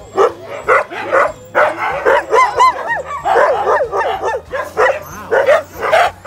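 A pack of sled dogs barking, yipping and whining over one another without a break, with high whines that rise and fall in pitch. The noise is the dogs' excitement and eagerness to run.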